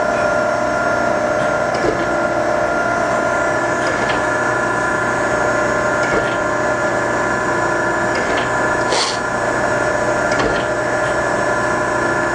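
Okamoto ACC-1224DX hydraulic surface grinder running with its hydraulics and spindle on and the table traversing: a steady machine whine made of several held tones, with faint clicks every couple of seconds and a short hiss about nine seconds in.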